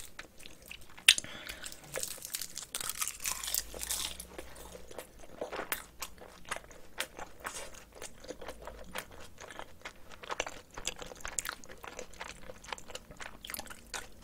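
Close-miked chewing of a mouthful of rice mixed with spicy marinated cockles, with many small wet clicks and smacks of the mouth throughout.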